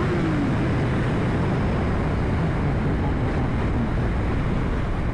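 2021 BMW S1000RR inline-four riding at speed: the engine note drops in pitch at the start as the throttle comes off. After that, a steady rush of wind and road noise covers the engine.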